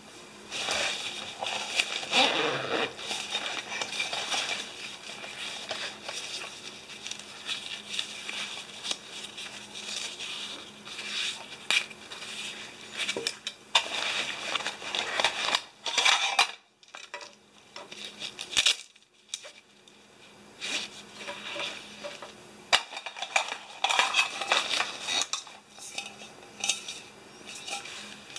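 Metal camping cookware (pots and cups) clinking and scraping as it is handled and set down on a wooden table, along with the rustle of a nylon stuff sack being opened. The clatter comes in irregular bursts, with a couple of quieter pauses past the middle.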